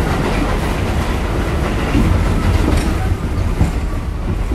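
New York City subway car on the 6 line running on above-ground track, heard from inside the car: a steady low rumble with a few clacks from the wheels over the rails.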